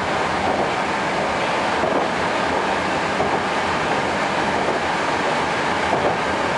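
Running noise inside an 81-765/766/767 metro car at speed: a steady rumble and rush of wheels on rail that holds even throughout.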